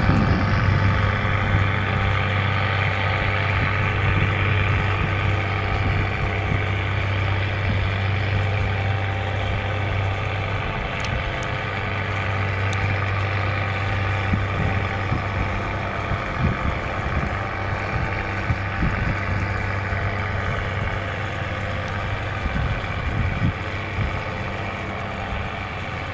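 Tugboat's diesel engine running steadily at low speed, a deep even hum with overtones, slowly growing fainter.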